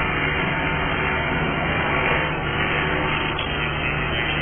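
Angle grinder running steadily against steel, grinding out a bad weld seam, with a constant hum underneath.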